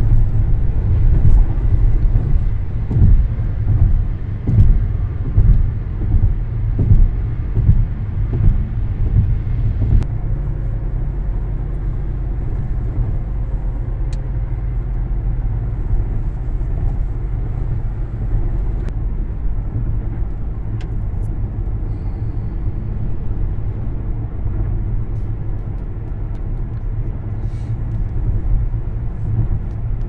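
Road noise inside a car at highway speed: a low, steady rumble of tyres and engine. For the first ten seconds or so it comes in uneven gusts, then it settles into an even rumble after a click.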